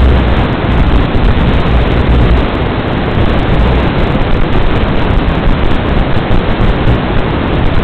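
Steady, loud hiss of static from the analog FPV video link's audio channel, with a low hum underneath that fades out about three seconds in.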